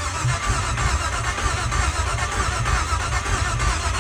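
Car engine cranking on the starter motor with the exhaust removed, turning over in a steady, even rhythm but never catching: the crank-no-start fault is still there, though the starter now works.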